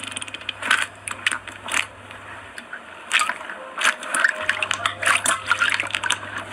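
Slime being squeezed and worked by hand: irregular wet crackles and sharp little pops, several a second, with a steady low hum underneath.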